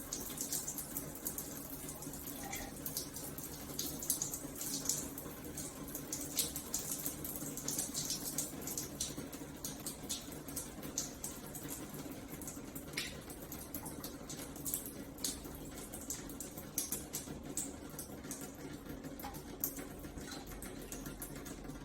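Shower running: a steady spray of water with irregular splatters and drips ticking through it, over a steady low hum.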